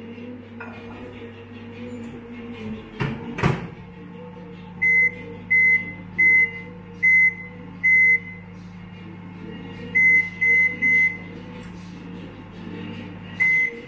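IFB 30SC2 convection microwave: the door is shut with a double knock about three seconds in, then nine short, high keypad beeps as the oven is set to 125 °C and 30 minutes.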